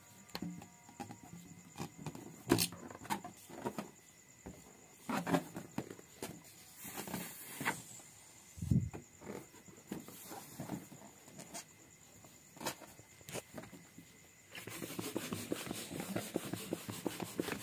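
Rubber balloons being waved and handled close to the microphone: scattered soft knocks and rustles with one duller thump midway, then a continuous scratchy rubbing of balloon rubber starting near the end.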